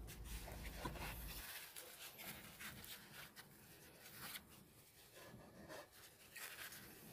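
Near silence with faint handling sounds: light rustles and small knocks as a gloved hand moves a Dremel compact saw into place over a taped terracotta pot, the saw not running. A faint low hum stops about a second and a half in.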